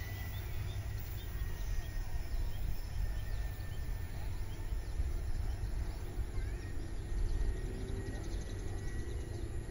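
Low, unsteady wind rumble on the microphone, with faint bird chirps and a thin high tone above it.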